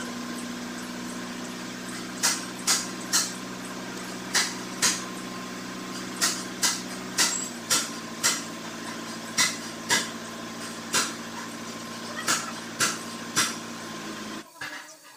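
Brazing torch flame held on a radiator tank over a steady hum and hiss whose pitch steps down about halfway through. Sharp metallic taps come in groups of two or three every second or two, and the hum drops away sharply near the end.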